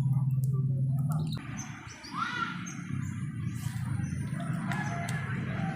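Small birds chirping: short high chirps repeated throughout, over a steady low hum.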